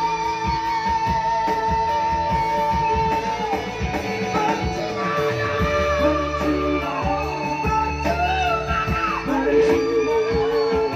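Instrumental break of a Batak trio song: a guitar-led melody with long held notes over bass and a steady beat.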